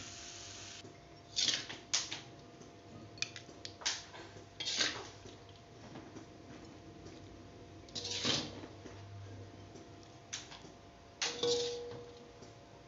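Metal spatula scraping and clinking against a metal wok as the cooked stir-fry is scooped out onto a plate: a handful of separate scrapes, the loudest about eight and eleven seconds in.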